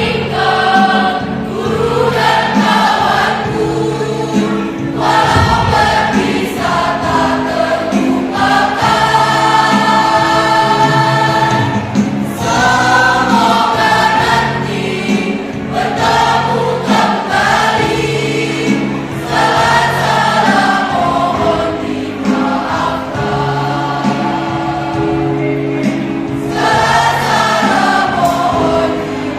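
A mixed choir of teenage students singing a slow farewell song in phrases of a few seconds, over steady held keyboard chords.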